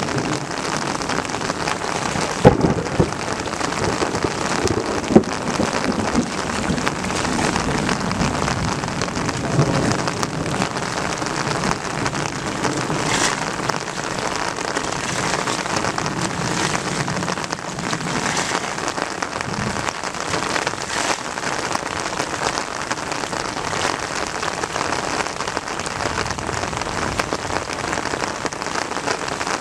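Shallow muddy water splashing and sloshing as hands and feet churn through it, a steady rain-like patter. There are two sharp smacks, about two and a half seconds in and again near five seconds.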